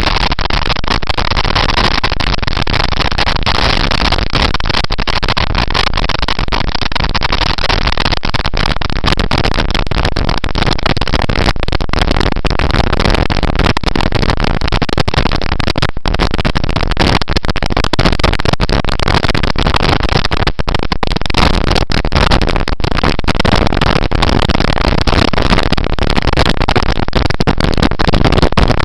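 Steady loud rush of wind and road noise from a motorcycle riding at speed, heard through the microphone of a camera mounted on the bike.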